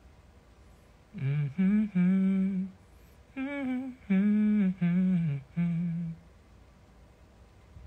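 A man humming a slow melody with his lips closed, in a few short phrases of held notes between about one and six seconds in.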